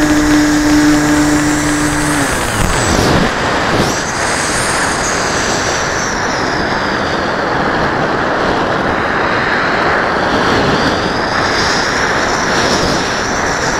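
Wind rushing over a model airplane's onboard camera in flight, mixed with the aircraft's motor. The motor's steady tone holds for about two seconds, then falls away, and a faint high whine rises and falls later on.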